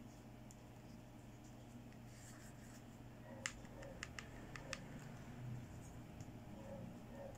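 Fingernails and fingers clicking and tapping on a small plastic toy hand mirror as it is handled: a quick cluster of about six sharp, quiet clicks about halfway through, over a faint steady room hum.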